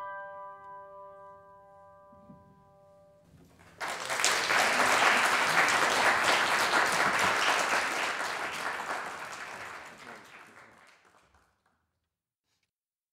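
The final piano chord rings and dies away, then the audience applauds, starting suddenly about four seconds in and fading out near the end.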